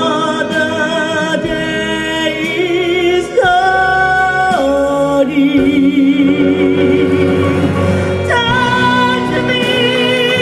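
A woman singing a slow ballad live with a symphony orchestra, holding long notes with vibrato over sustained strings.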